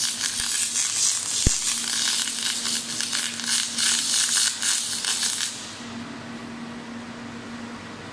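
MIG welding arc crackling and sizzling steadily as the wire feeds, with spatter, cutting off suddenly about five and a half seconds in. A low steady hum carries on underneath and remains after the arc stops.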